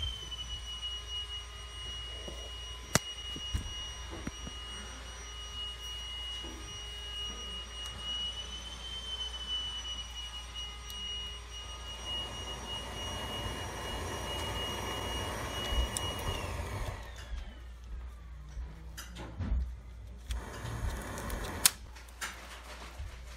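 Bison Airlighter 420's electric blower fan running with a steady high whine, joined from about halfway through by the hiss of its butane torch flame. Near the end both stop and the fan's whine falls in pitch as it spins down, followed by a few clicks and knocks from handling.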